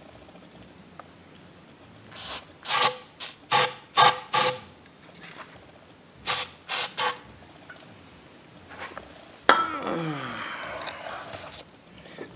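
Aerosol starting fluid sprayed into a small engine's carburetor intake in short hissing spurts: five quick bursts, then three more. Near the end comes a sudden clatter followed by a scraping rustle.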